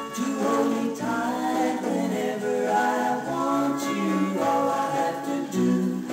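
A gramophone record playing on a Garrard 201B broadcast turntable: vocal music with singing voices, thin in the bass.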